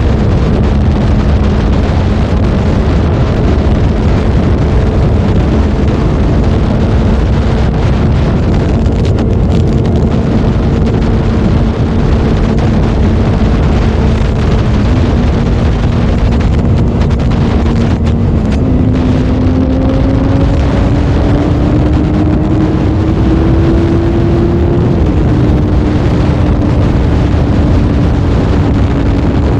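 Sport motorcycle engine running steadily at highway speed under heavy wind rush on the microphone. About two-thirds of the way in its note rises gradually, then drops back a little near the end and holds steady.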